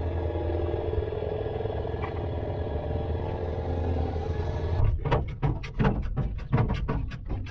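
An engine running steadily with a low hum. About five seconds in it gives way abruptly to a rapid, irregular series of sharp knocks.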